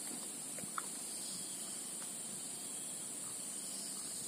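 Steady background hiss with a constant high-pitched drone and no distinct event.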